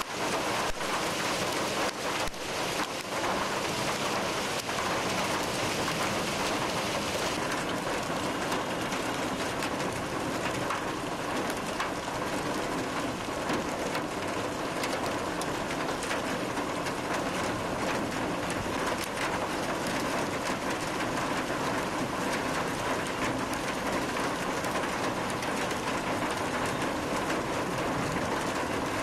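A hailstorm with heavy rain: a dense, steady hiss of rain with many sharp ticks of hailstones striking pavement and standing water.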